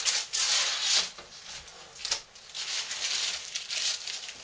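Crinkly rustling and rubbing as a wrapper or liner is pulled off and handled around a loaf of homemade soap, in two stretches about two seconds apart, with a light knock near the start.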